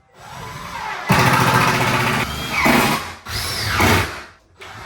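Cordless drill driving screws into a cabinet's wooden side panel, run twice with the motor speeding up and slowing down.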